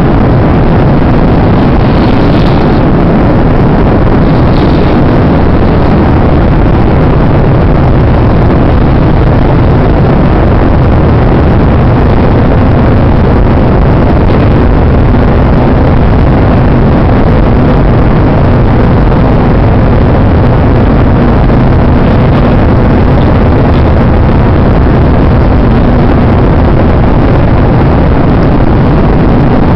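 Airplane cabin noise: a loud, steady drone of engines and rushing air.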